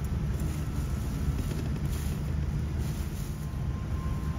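Steady low rumble of a Boeing 787-9 airliner's cabin, heard from a passenger seat; a faint thin steady tone comes in near the end.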